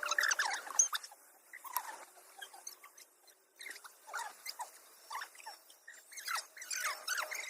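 Quick, short, high squeaks and chirps from a small animal, coming in a busy cluster at first and then more scattered.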